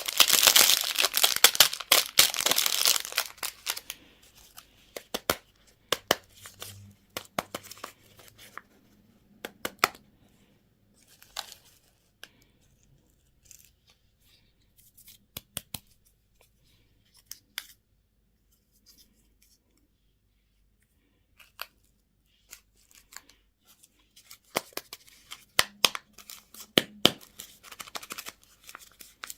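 Candy or toy wrapping being torn open and crinkled, loudest for the first few seconds. Then come scattered light clicks and rustles with quiet stretches between, and more crinkling near the end.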